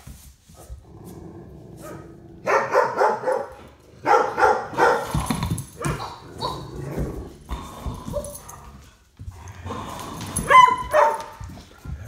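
A large dog barking nervously at a seashell on the floor. Two quick runs of barks and yips come a few seconds in, with smaller whimpering calls between them, and a louder, higher yelp near the end.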